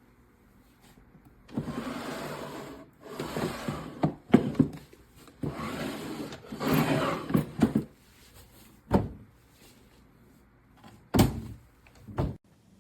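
Furniture being slid and handled: four scraping slides of a second or two each in the first half, with a couple of sharp clicks, then three separate knocks near the end.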